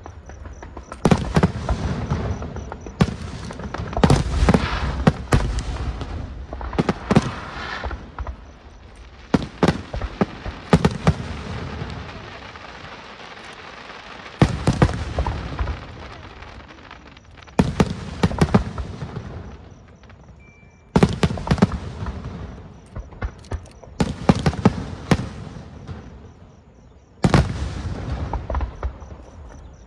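Fireworks display: volleys of sharp bangs and booms come every few seconds, each group trailing off in a rumbling echo that fades before the next.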